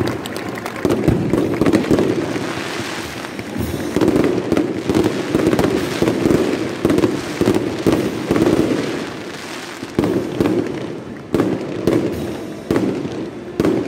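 Fireworks going off in a long run of bangs and crackles, with a few sharper, separate cracks near the end.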